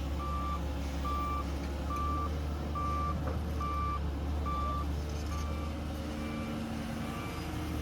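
A heavy machine's reversing alarm beeping steadily, a little over one short beep a second, over the low, steady running of a diesel engine; the beeps fade in the second half.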